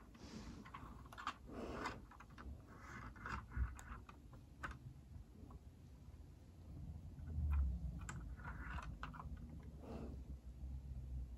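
Faint, scattered clicks and rattles of Lego plastic pieces as a Lego garbage truck and its small bins are handled and moved over a carpet by hand.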